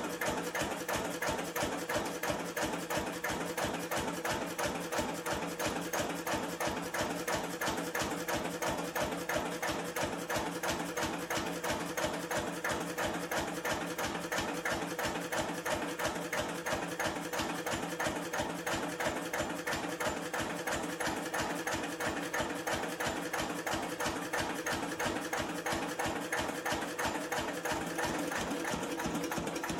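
1953 Lister CS 3.5 HP single-cylinder diesel stationary engine running steadily, its firing strokes making a rapid, even beat.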